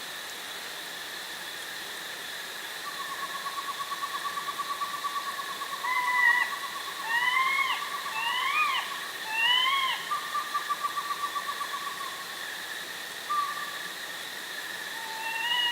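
Bobcat kittens yelling: short rising yelps with overtones, four in quick succession and one more near the end. A rapid, even trill runs before and after the yelps, over a steady high drone.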